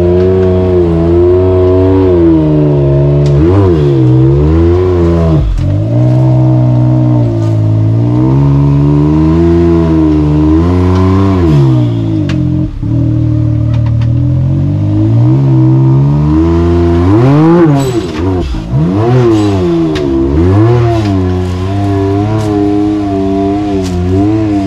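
Side-by-side UTV engine revving up and down over and over under heavy throttle as it works up an off-road obstacle, with the revs dropping sharply several times when the throttle is lifted.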